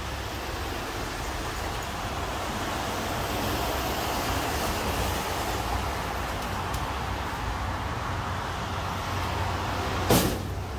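Road traffic passing on a multi-lane road: a steady rush of cars and heavier vehicles going by, swelling a little in the middle. A short thump comes near the end.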